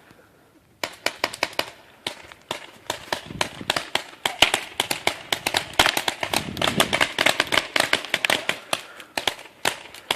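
Paintball markers firing in rapid, uneven volleys of sharp pops, several a second, starting about a second in.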